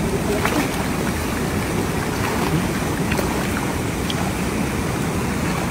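Water sloshing and splashing as a cast net packed with fish is dragged through shallow water, over a steady rushing noise.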